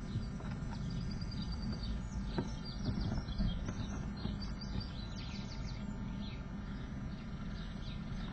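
Songbird nestlings in a nest box giving thin, high chirps in quick bursts, busiest around the middle, over a steady low rumble.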